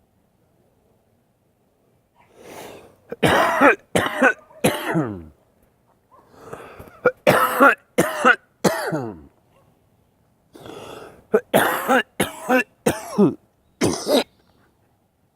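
A man coughing hard after a big hit of cannabis smoke. The coughing comes in three fits a few seconds apart, each one a drawn breath followed by three or four harsh coughs.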